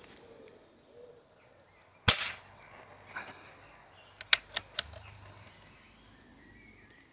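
Air Arms S400 pre-charged pneumatic air rifle firing a single shot through a chronograph: one sharp crack with a short tail about two seconds in, then a fainter knock about a second later. A quick run of four light clicks follows, around four to five seconds in.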